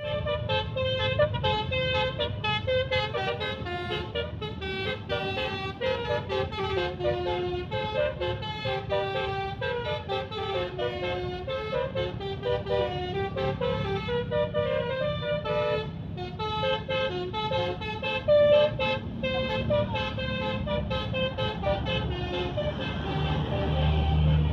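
Telolet musical car horns playing quick melodic runs of short stepped notes, one tune after another. A vehicle engine's low rumble runs underneath and swells near the end.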